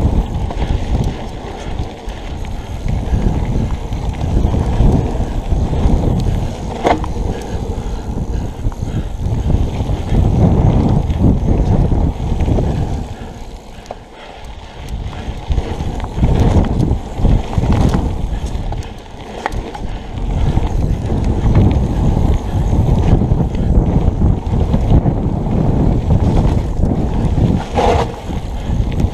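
Mountain bike rolling fast down a dirt single track, with wind buffeting the action camera's microphone and the knobby tyres running over the ground. The noise eases for a moment around the middle, and there are two brief squeaks, about a quarter of the way in and near the end.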